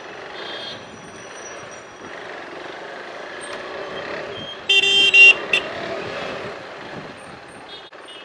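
Slow city road traffic, a steady din of motorbike, scooter and car engines, with a loud vehicle horn honking about halfway through in a long blast and a short second one. A fainter horn toots near the start.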